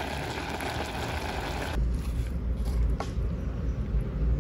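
A pot of quinoa and vegetables simmering with a steady bubbling hiss. About two seconds in, this cuts to a low rumble with a single knock, as a wooden spoon is worked through the cooked quinoa in the pot.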